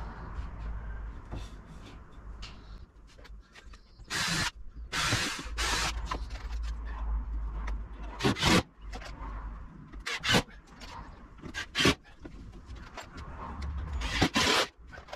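Cordless drill-driver driving screws into a timber frame in several short bursts, with wood being rubbed and handled between them.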